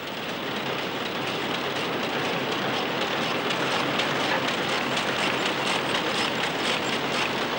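Cigarette packing machines running at speed: a loud, rapid, rhythmic mechanical clatter that swells up over the first second or so, then holds steady.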